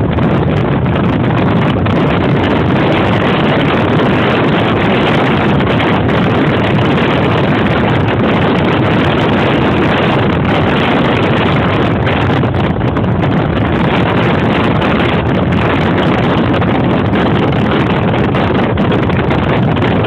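Wind buffeting the microphone over steady road and engine noise from cars travelling side by side at speed.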